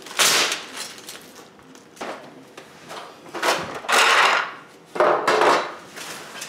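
Plastic-wrapped bundles of metal drawer slides and a bag of plastic drawer handles being handled and set down on plywood. The plastic crinkles and the slides clatter lightly in several short bursts, the loudest about four seconds in.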